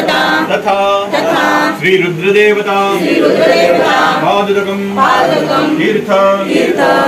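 A group of people chanting a devotional mantra together in unison, in a sing-song recitation.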